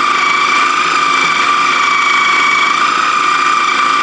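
Electric food processor motor running steadily with a high whine, chopping scallions in a little oil.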